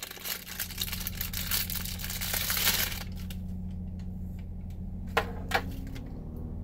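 Plastic packaging crinkling and rustling as a watch is unwrapped, for about three seconds, then two sharp clicks just after five seconds in.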